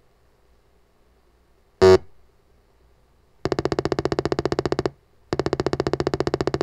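Electronic beep sound effects from an Apple II's built-in speaker: one short, sharp beep about two seconds in, then a rapid pulsing buzz in two runs of about a second and a half each with a short gap between them.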